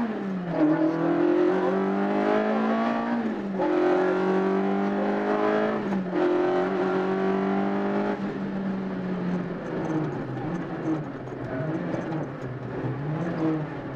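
Rally car engine heard from inside the cabin, accelerating hard up through the gears. The revs climb, then drop sharply at upshifts about three and a half and six seconds in. After about eight seconds the engine eases off, and the revs rise and fall unevenly.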